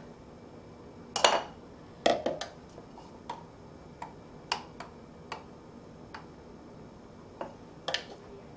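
A spoon clinking and tapping against a glass cup and a measuring jug while scooping thick pudding: about ten irregular knocks, the loudest a little over a second in and two seconds in.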